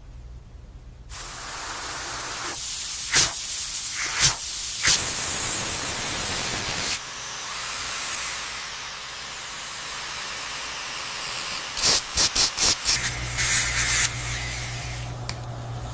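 Dental air-and-water spray hissing in long blasts. There are a few sharp spurts in the first few seconds and a quick run of short bursts near the end.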